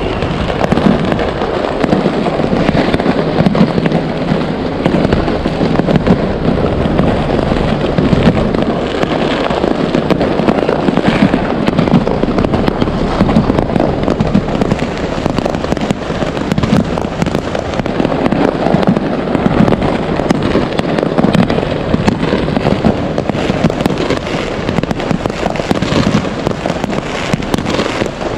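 Many fireworks going off at once: a dense, unbroken run of overlapping bangs and crackles.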